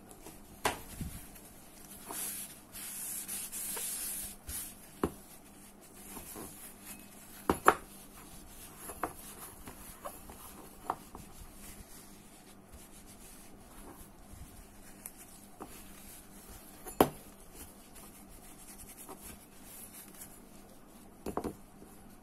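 Small parts of a Ryobi AP Power 8000 spinning reel's spool and drag stack being handled during reassembly: scattered sharp clicks and taps, the loudest about a third of the way in and again past the middle. There is a rubbing hiss a few seconds in.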